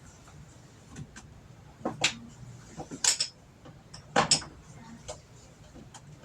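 Kitchen handling noises: five or so sharp clicks and knocks of containers and utensils being moved about, the loudest a little after four seconds in.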